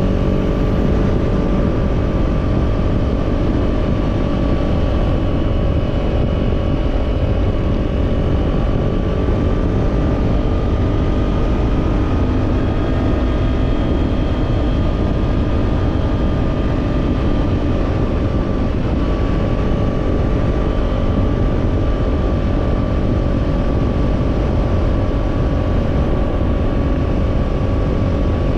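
Kawasaki parallel-twin motorcycle engine, fitted with a slip-on exhaust, cruising at a steady engine speed with its pitch drifting only slightly.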